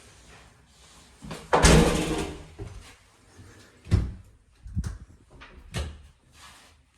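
Door being opened and shut: a loud clattering rush, then three sharp knocks a second or so apart.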